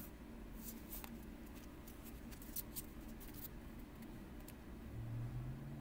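Tarot cards being handled: their edges flick and click faintly and irregularly as they are leafed through in the hands and one is pulled out and placed.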